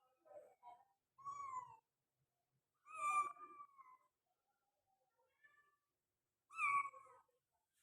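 Persian kittens meowing: three clear meows with falling pitch, the last two the loudest, and a few fainter short mews between them.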